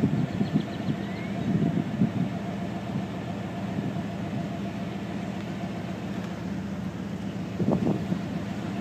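Steady low hum of an idling vehicle engine, with a brief louder rumble near the end.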